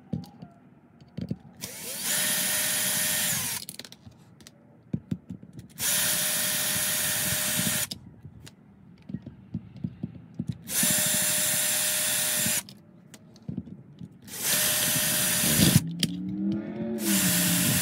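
Cordless drill/driver running in five short bursts of a second or two each, a steady motor whine, backing small screws out of the plastic back plate of a keyless RV door lock. Light clicks and taps of handling come between the bursts.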